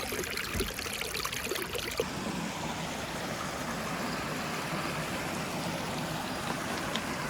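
Creek water flowing over rocks: a steady rush, with a few light knocks in the first two seconds.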